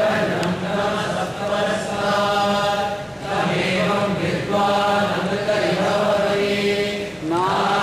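Chanting voices holding long steady notes in phrases of a second or two, with short breaks between phrases.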